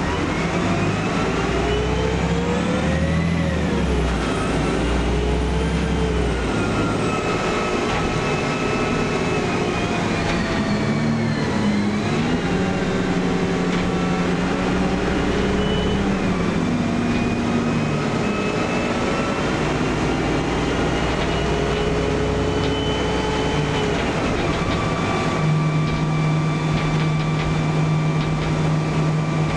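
Karosa B961E articulated city bus heard from inside the passenger cabin while driving: the engine and drivetrain whine rises in pitch and drops back several times, as in accelerating through gear changes, then holds a steady pitch for the last few seconds.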